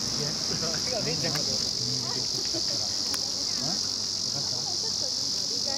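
Cicadas buzzing steadily in a continuous high-pitched summer chorus, with faint distant voices beneath.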